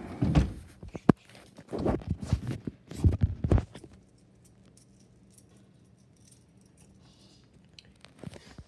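Irregular thumps, knocks and rustling from a person moving with a handheld camera, with a sharp click about a second in. After about four seconds it falls to near silence with a few faint ticks.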